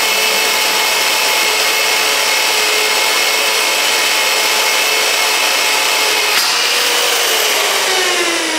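Fein KBH 25 hand-held core drill with a carbide-tipped core cutter boring through 3/8 in mild steel plate: a steady, loud motor whine over the grinding of the cutter in the metal. A little over six seconds in there is a brief click, and the motor's pitch then falls as it winds down with the cut through.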